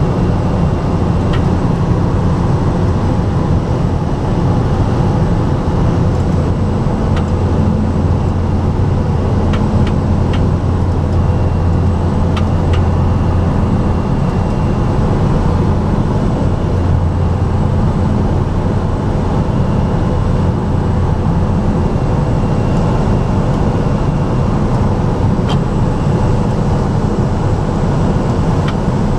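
Steady drone of a light aircraft's engine and propeller heard in the cabin, low and even, a little stronger for several seconds in the first half.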